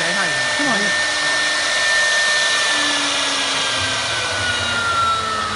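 CNC wood router running: the spindle motor gives a steady high whine over the noise of the cut as the head works a wooden board. In the first second there are rising-and-falling tones as the head moves, and over the last couple of seconds the whine slowly drops in pitch.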